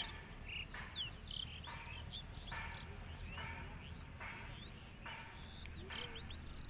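Outdoor wildlife ambience: a buzzing call repeats a little faster than once a second, with short high chirps scattered between the calls.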